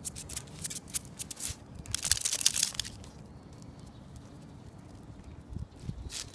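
Crinkling, rustling noise close to the microphone, loudest for under a second about two seconds in, after a few quick clicks; a faint low hum sits underneath.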